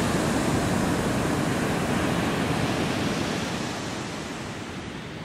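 Ocean surf washing onto a sandy beach, a steady rushing noise that becomes quieter about three and a half seconds in.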